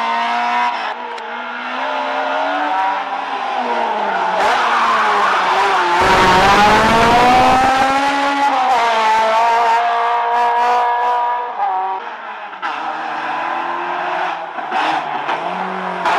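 Peugeot 205 hillclimb race car engine revving hard, its pitch falling and rising as it brakes and accelerates through a hairpin, loudest about six seconds in. About twelve seconds in it gives way to a second race car, an Opel Manta, its engine revving.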